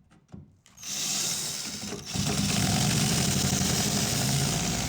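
Power drill fitted with a small tile bit, run in reverse against a painted-over cabinet hinge screw to back it out. A few light clicks, then the drill starts about a second in and runs louder and steadier from about two seconds in.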